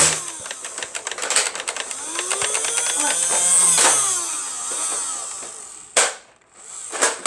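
Motorized Nerf blaster whirring up and firing a rapid burst of foam darts, with fast mechanical clicking over a motor whine that rises and then falls away. Two sharp separate clicks follow near the end.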